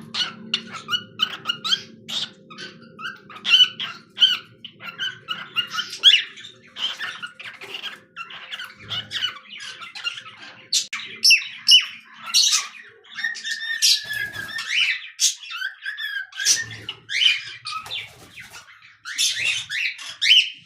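Pet cockatiel singing: a rapid string of short chirps and squawky whistles, with a longer warbling whistle about two-thirds of the way through.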